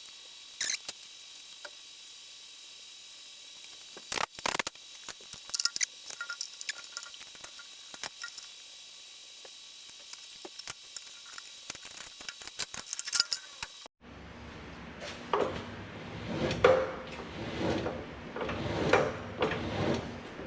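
Scattered sharp clicks and metallic clinks of hand tools and machine parts being handled during reassembly, over a steady high hiss. About two-thirds of the way through the sound changes abruptly to fuller knocks and rattles.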